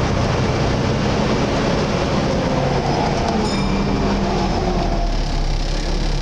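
Volvo B7TL double-decker bus's six-cylinder diesel engine and drivetrain heard from on board, falling in pitch as the bus slows. A little over halfway through it settles into a steady low drone.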